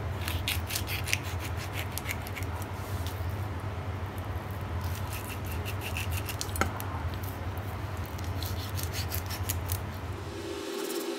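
Kitchen knife scraping and crackling through a snakeskin gourami's flesh and fine rib bones as the fish is filleted on a wooden board, in runs of quick small clicks with one sharper snap about two-thirds of the way through. A steady low hum runs underneath and stops shortly before the end.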